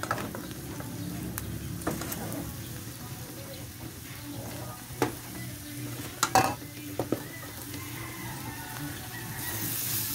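Metal spatula scraping and clacking against a metal wok as garlic, onion and curry powder fry with a steady sizzle. Near the end the sizzle grows louder and hissier as raw chicken pieces go into the hot pan.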